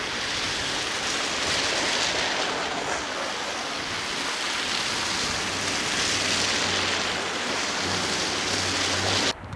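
Street traffic in falling snow: a steady hiss of tyres on wet, slushy pavement. A vehicle engine's low hum joins about halfway through. The sound cuts off abruptly near the end.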